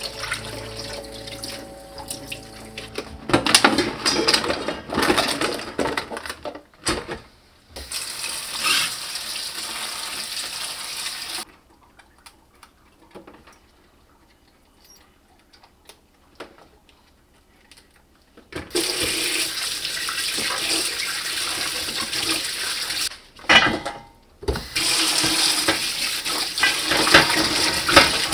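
Kitchen tap running into a stainless steel sink as vegetables are rinsed by hand in a bowl, with water splashing. The stream stops for about seven seconds midway, then runs again.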